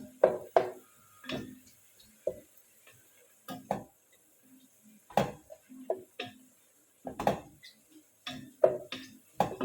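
Irregular sharp knocks and clatter of kitchen utensils on cookware, about fourteen strikes with short pauses between them.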